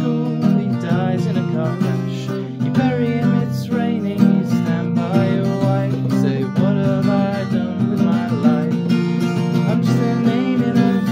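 Steel-string acoustic guitar strummed in a steady rhythm, with a man singing over it.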